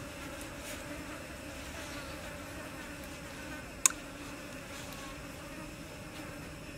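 Steady buzzing of flying insects, with a constant low hum throughout. One sharp click about four seconds in is the loudest sound.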